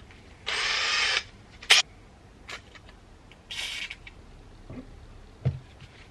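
Cordless drill with a 3 mm bit run in two short bursts against a steel bar, the first lasting under a second and the second shorter, with sharp clicks and knocks in between.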